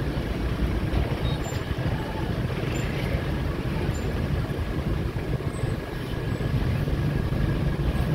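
Steady low rumble of motor traffic under a busy street market's background hubbub, with no clear voices or sudden sounds.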